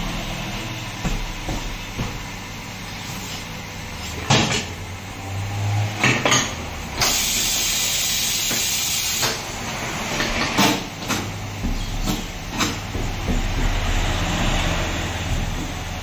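Tyre-shop work sounds: knocks and clunks as a wheel is handled and set on a tyre changer, over a steady low hum. A loud hiss lasts about two seconds near the middle.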